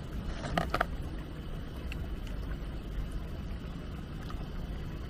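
Clear baijiu poured from a glass bottle into a ceramic bowl in a thin stream, with a couple of light clinks just under a second in, over a steady low rumble.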